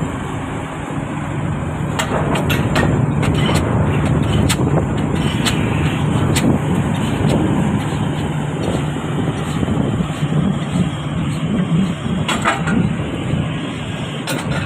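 Piling rig's diesel engine running steadily with a low hum, with scattered sharp metallic knocks and clanks, several close together a few seconds in and a couple more near the end.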